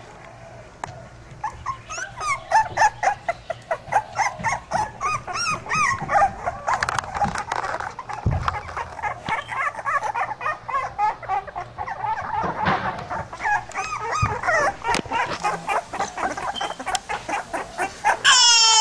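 A litter of young pit bull puppies whining and whimpering: many short, high-pitched cries overlap several times a second, beginning a couple of seconds in. Near the end, one cry is louder and longer than the rest.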